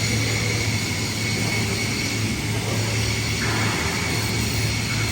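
A motor running steadily, with a low hum and a thin high whine over an even hiss; a little more hiss joins in near the end.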